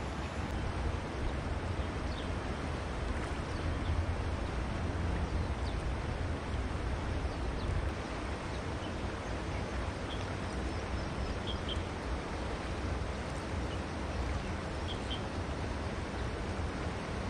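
Steady outdoor river ambience: the even rush of flowing river water with a low wind rumble on the microphone. A few faint, short, high chirps stand out briefly, about ten seconds in, twice near eleven and a half seconds, and again about fifteen seconds in.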